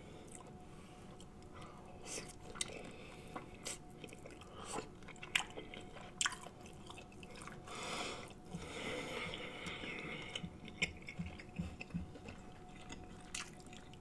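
Quiet, close-miked chewing and wet mouth clicks and smacking of a person eating tender, butter-sauced lobster meat from a seafood boil.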